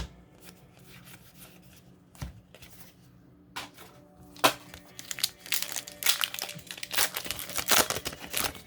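Foil booster pack wrappers crinkling and tearing as packs are opened. There are a few sharp clicks in the first half, and the crinkling grows dense and loud over the last few seconds.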